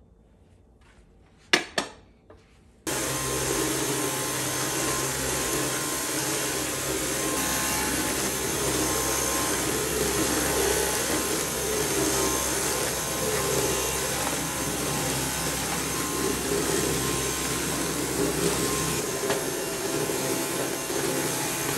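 Two sharp clicks, then an electric appliance motor starts abruptly about three seconds in and runs steadily: a loud even rush of noise over a low hum. The deepest part of the hum drops away a few seconds before the end.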